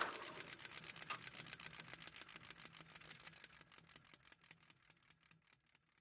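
Film projector running with rapid, even clicking and a low hum, fading out over about five seconds.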